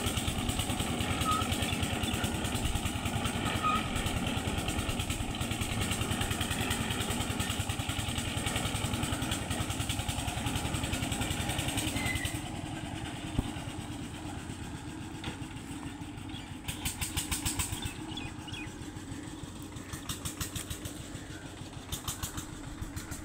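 Small stationary engine at a well-boring rig running steadily with a fast, even exhaust beat. About twelve seconds in it drops to a quieter level, with a few short bursts of rapid ticking after that.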